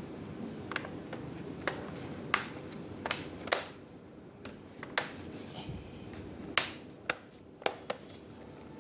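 Sharp, irregular clicks and taps of small hard objects being handled, about ten in all and spaced unevenly, over a steady low background hum.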